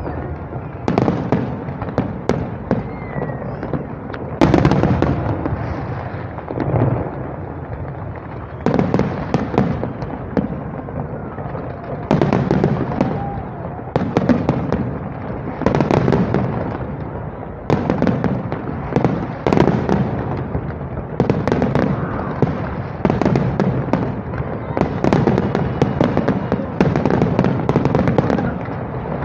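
Fireworks display: aerial shells bursting in a rapid, continuing barrage of bangs, one every second or two, with crackling between.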